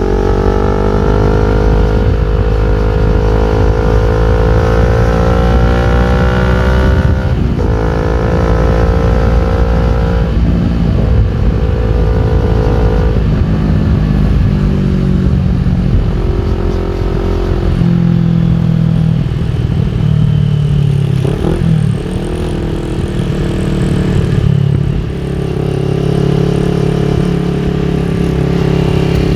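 CFMOTO NK400 parallel-twin engine through an Akrapovic full exhaust system, accelerating: the pitch climbs, drops sharply about seven seconds in at a gear change and climbs again, then the engine runs at lower, varying revs through the second half.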